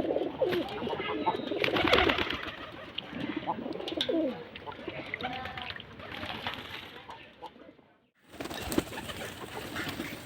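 Several pigeons cooing, with overlapping low rolling coos and small clicks and rustles among them. The sound cuts out briefly about eight seconds in, then carries on.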